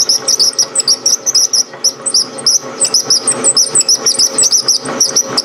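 South Bend 13-inch lathe running with a high-pitched squeak repeating about six times a second over the machine's steady running sound. Its cause on the machine is not yet known.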